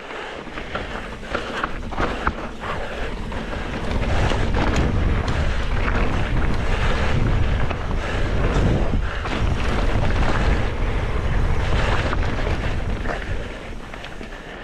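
Mountain bike ridden fast down a dirt trail: wind buffeting the microphone over the rumble of the tyres, with many short rattles and clacks from the bike. It grows louder about four seconds in and eases off near the end.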